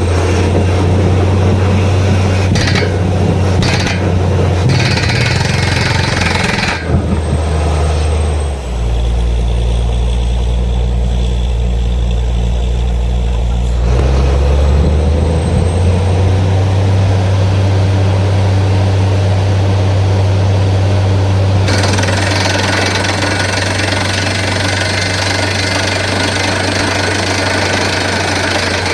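Borewell drilling rig running loudly: its engine and drilling hammer going continuously with a hissing rush of air. The engine note shifts lower then higher a couple of times.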